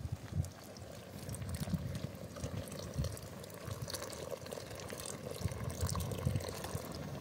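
Milk poured from a carton in a steady stream into a pot of milk over a wood fire, starting about a second in.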